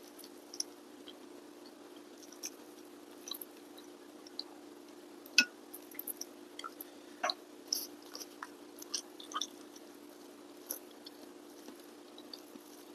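Close-miked hand-eating sounds: fingers kneading rice and food on a plate, making scattered soft, sticky squishes and small clicks, with one sharper click about five seconds in. A faint steady hum lies underneath.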